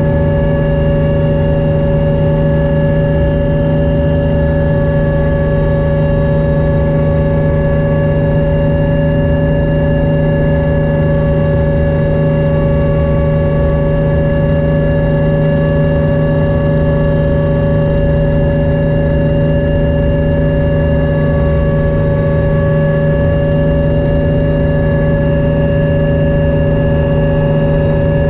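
Hummingbird helicopter in cruise flight heard from inside the cabin: a steady drone of engine and main rotor, with several held tones that do not change in pitch or loudness.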